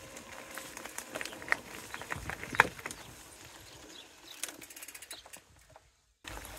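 Footsteps on a paved track with scattered clicks and taps from the handheld camera, the loudest tap about two and a half seconds in. A quick run of ticks follows, then the sound drops out briefly near the end.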